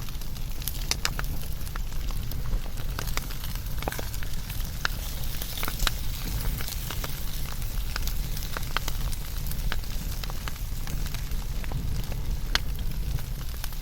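Wood fire burning and crackling, with many irregular sharp pops over a steady low rumble.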